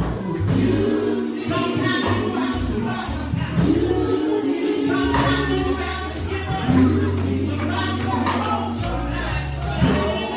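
Gospel music: voices singing over held bass notes and a steady percussion beat of about two strokes a second.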